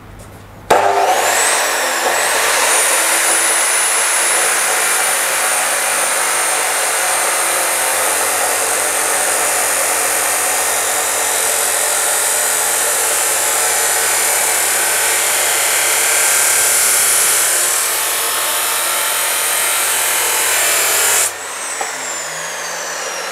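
DeWalt D28730 14-inch abrasive chop saw: the motor starts with a rising whine about a second in, then the abrasive wheel grinds steadily through steel for most of twenty seconds. Near the end the motor is switched off and the wheel winds down with a falling whine.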